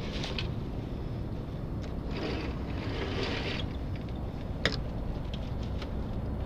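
Wind rumbling on the microphone and water washing and splashing against the hull of a small sailing trimaran, with swells of hiss, and a single sharp click about two-thirds of the way through.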